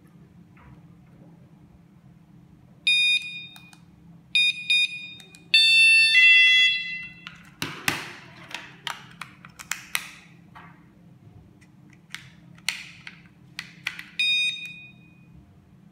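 Piezo sirens of KS-SF03R magnetic door alarms beeping as they respond to the key-fob remote. There is one beep about three seconds in, two short beeps, then a longer tone followed by a short falling run of tones, and one more ringing beep near the end. In between come sharp clicks and knocks of the plastic alarm units and magnets being moved on a wooden table.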